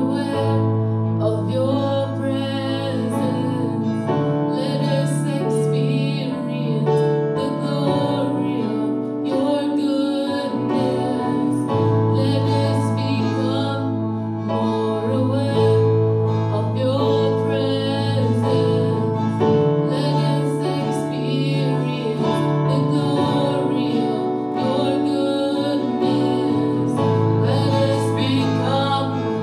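Live worship song played by a small acoustic band: keyboard with held notes, acoustic guitar, and a woman singing the lead melody.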